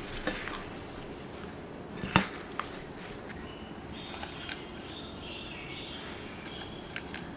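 Light kitchen handling sounds as wet, soft peach slices are laid by hand into a parchment-lined cake tin. There is a sharp knock about two seconds in and faint paper and slice clicks later on, over a steady low hum.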